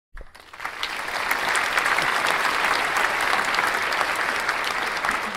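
Applause: many hands clapping, building over about the first second and then steady.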